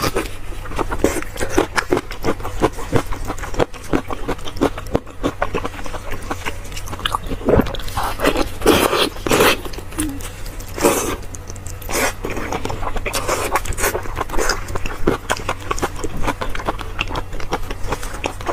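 Close-miked wet chewing and smacking of soft, fatty braised pork mesentery (cockscomb fat), a dense run of sticky mouth clicks, with a few louder, longer sucking mouth sounds about eight to eleven seconds in.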